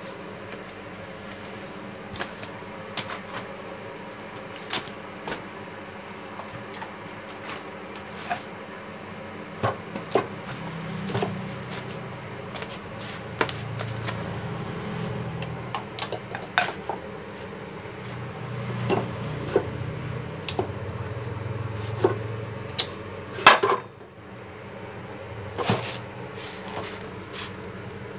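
Clicks, knocks and clatter of a Hitachi 216 mm compound miter saw being handled and set down on the floor, with one louder knock near the end. A low rumble comes and goes in the middle.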